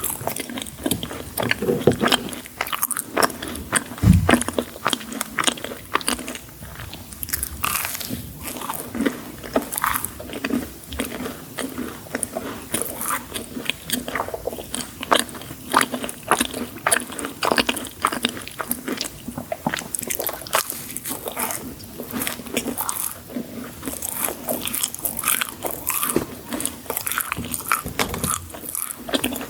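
Biting and chewing crunchy sweets, with many crisp crunches coming one after another.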